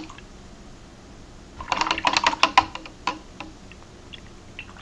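A paintbrush rattling and tapping against a clear plastic rinse cup as it is swished in the water: a quick run of clicks about two seconds in, then a few scattered taps.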